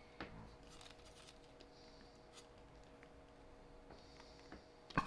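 Faint handling noise as a plastic-hubbed rubber wheel is pushed onto a small gearmotor's plastic shaft: light scraping and a few small clicks, with a louder click near the end. The fit is very tight.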